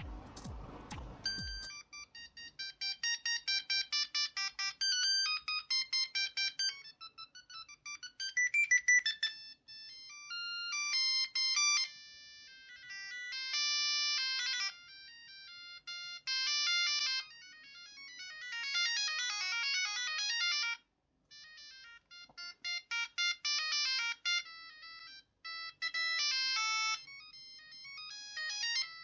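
Siemens A50 mobile phone playing its built-in ringtone melodies through its small speaker: short electronic tunes that change every couple of seconds as the list is stepped through. There are brief gaps between the tunes.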